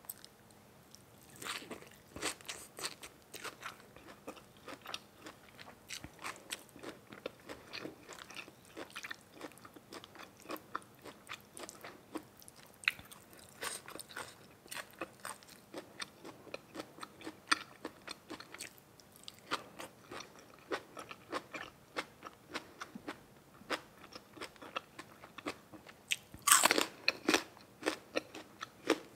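A person chewing and crunching food close to the microphone: a steady run of small, irregular crunches and mouth clicks, with a louder flurry of crunching near the end.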